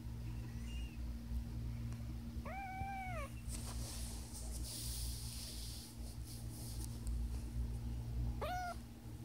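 Cat meowing twice: a drawn-out meow that rises and falls about two and a half seconds in, and a shorter one near the end.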